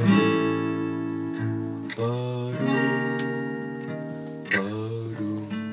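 Acoustic guitar music: strummed chords ringing out and changing a few times, with brief sliding notes between some of the changes.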